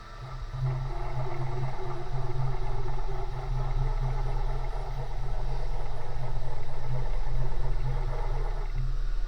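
CNC milling machine running: a steady motor hum with a mechanical whir over it, starting about half a second in.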